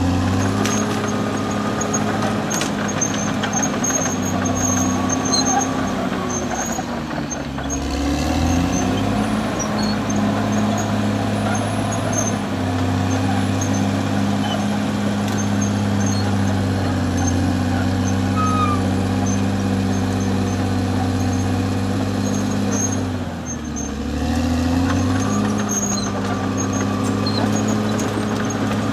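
Caterpillar D6R XL bulldozer's diesel engine running steadily under work. Its pitch sags twice, a few seconds in and again about two-thirds through, then climbs back each time.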